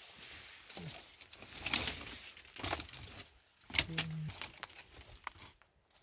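Dry twigs and leaves rustling and crunching as they are handled and pushed together for kindling, in about five short, crisp bursts.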